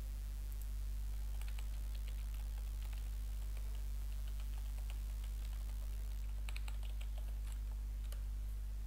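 Typing on a computer keyboard in two bursts of quick keystrokes, the first from about a second and a half in and the second from about six seconds in, over a steady low hum.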